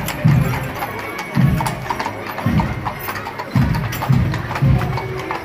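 Hooves of a pair of draught horses clip-clopping on a paved street as they pull a wagon, over music with a heavy low beat about twice a second.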